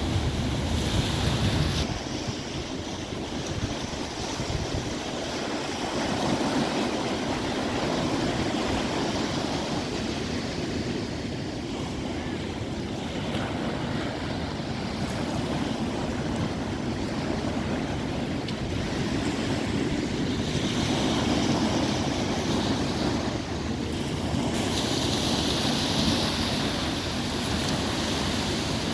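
Sea surf breaking and washing in on a beach, a continuous rush that swells and eases every several seconds as waves come in, with wind buffeting the microphone.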